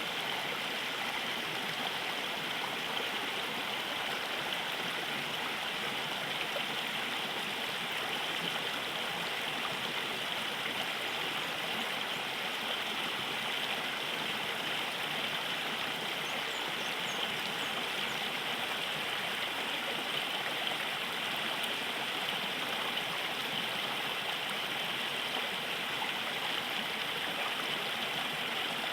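River water flowing steadily over a shallow bed, a continuous rushing and gurgling.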